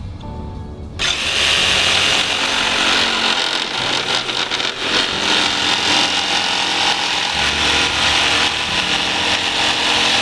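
A power tool starts up about a second in and runs continuously, working on wood, with background music underneath.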